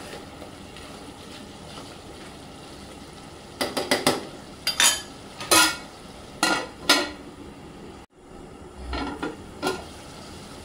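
Mutton and masala sizzling steadily in a cooking pot. A metal spoon stirs and clinks against the pot in a run of strokes between about four and seven seconds in, and twice more near the end.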